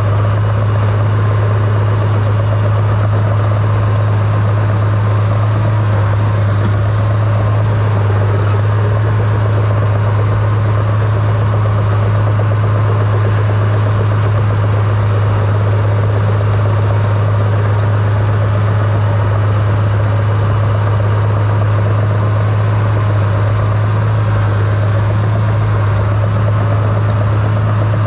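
Small crawler dozer's diesel engine running steadily, heard close up from the operator's seat as the dozer pushes snow with its blade: a loud, even low hum that holds without change.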